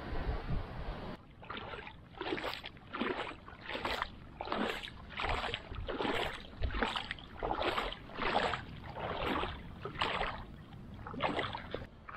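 Feet wading through shallow water, each step a splash, about one every three-quarters of a second. This follows a second of steady wind and surf at the start.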